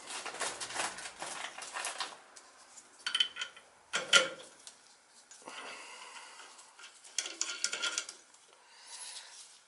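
Metal clinking and rattling as a circulator pump's flange and bolts are handled and fitted by hand, with a sharp metal knock about four seconds in.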